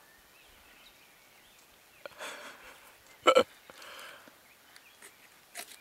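Two soft scrapes of a striker drawn down a ferrocerium rod over tinder, about two seconds in and again about four seconds in. Between them comes a short, sharp vocal sound, the loudest thing heard.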